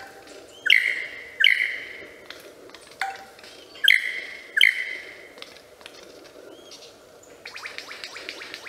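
Male superb lyrebird calling during his tail-fanned courtship display: five loud, sharp calls that sweep down in pitch over the first five seconds, then a fast rattling series of clicks starting near the end.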